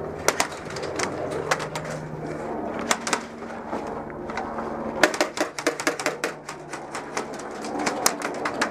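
Airsoft guns firing single shots and short rapid strings of sharp snapping clicks, with a denser run of shots about five seconds in and again near the end.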